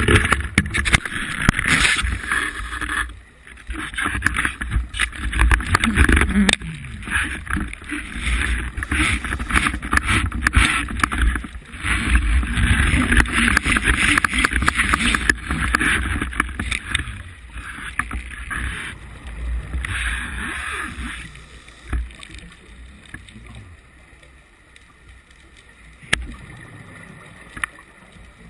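Muffled underwater rushing and bubbling noise heard through a camera housing. It comes in surges of a few seconds with short breaks between, and dies down to a low hiss with a few clicks over the last several seconds.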